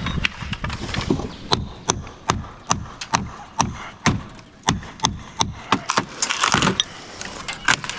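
Steel hammer striking a pry bar set into a rotted wood fascia board, a steady run of sharp blows about two or three a second, driving the bar in to work the fascia loose.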